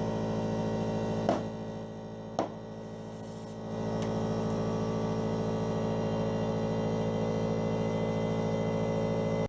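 Air compressor motor running with a steady hum while the new motorcycle tyre is inflated. Two sharp snaps come about a second and two and a half seconds in, after which the hum drops a little for a moment before it steadies again.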